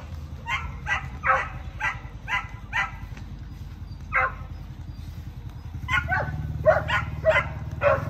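A dog barking: a run of about six short barks, roughly two a second, then a single bark, then a quicker run of barks from about six seconds in.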